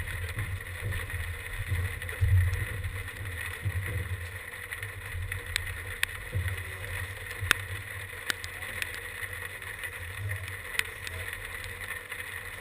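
Wind buffeting the microphone in an uneven low rumble, with scattered sharp ticks of raindrops striking.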